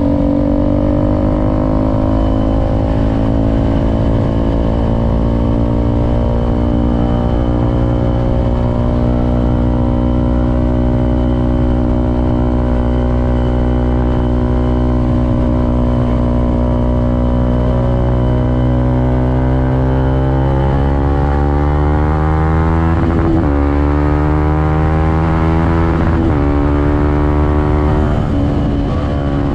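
Suzuki Gixxer SF 250's single-cylinder engine running on the road, its pitch easing slowly downward, then climbing as the bike accelerates, with two brief dips in pitch where gears are changed, about 23 and 26 seconds in.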